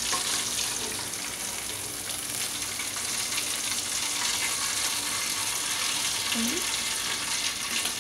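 Steady sizzling of food cooking on a stovetop.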